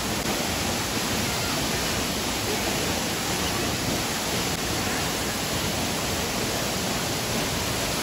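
Steady rush of a tall waterfall falling into its plunge pool, an even hiss-like roar with no breaks.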